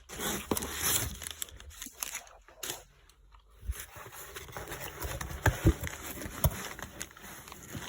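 Newspaper packing being rustled and crumpled as it is pulled out of a shipping box. The rustling pauses for about a second in the middle, then goes on with crackling and a few sharp clicks.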